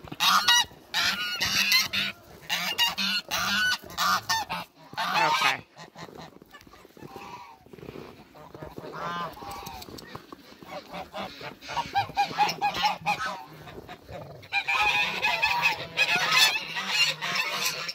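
A flock of domestic geese honking, many calling over one another at once. The chorus thins to scattered single honks in the middle and swells again near the end.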